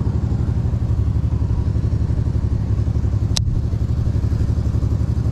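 Steady low rumble of an idling motor-vehicle engine with a fast, even pulse, and one sharp click about three and a half seconds in.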